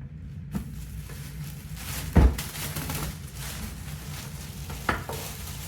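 Rustling and scraping of packaging as an air fryer is lifted out of its box and styrofoam. There is a heavy thud about two seconds in and a lighter knock near the end.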